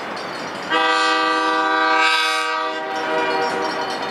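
Multi-note air horn of an approaching locomotive, an MLW RS-18, sounding one long blast that starts just under a second in and tails off near the end, over the steady rumble of the train.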